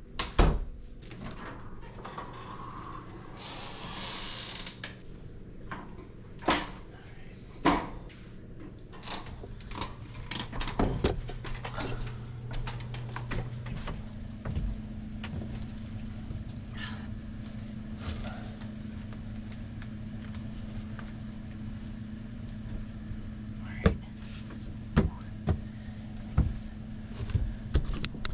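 Scattered knocks, clicks and bumps of hands-on installation work, handling cable and fittings, over a steady low hum that changes pitch about halfway through.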